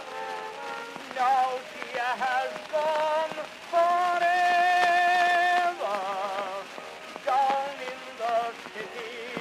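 Old acoustic-era 78 rpm record of a male tenor singing with vibrato, holding one long note in the middle, over the crackle and hiss of the disc's surface noise. The sound is thin, with no bass.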